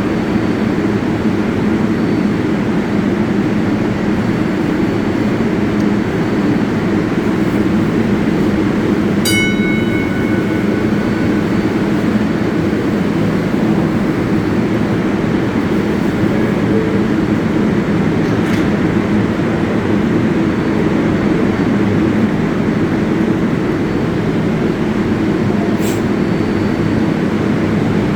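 New York City Subway 7 train at a station: a steady heavy rumble and hum of the train's equipment, with a brief ringing tone about nine seconds in and a couple of sharp clicks later.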